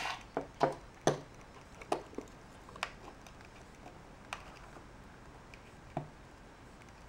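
Needle-nose pliers and a steel C-clip clicking and tapping against each other and the bench while the clip is worked into place on a power steering gear box. It is a string of sharp clicks, bunched in the first three seconds, then two more about four and six seconds in.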